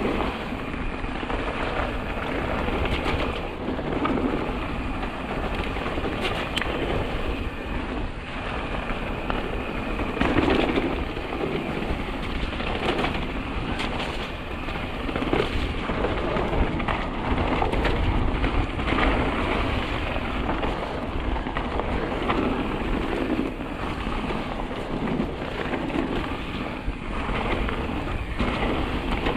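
Mountain bike riding down a trail: a steady rush of wind and tyre noise over the ground, broken by frequent short knocks and rattles from the bike and the camera mount.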